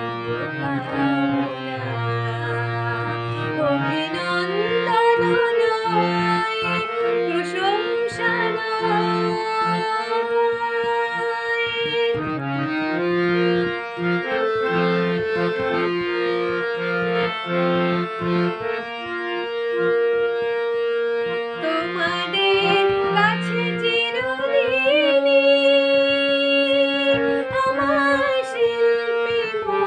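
A woman sings a melody to her own harmonium accompaniment, the harmonium's reeds holding steady notes and chords under her voice. In a couple of stretches the singing drops out and only the harmonium plays.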